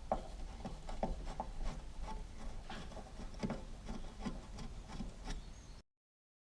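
Screwdriver working screws out of a car heater box: irregular small clicks and light scraping of metal and plastic, a few a second, stopping abruptly near the end.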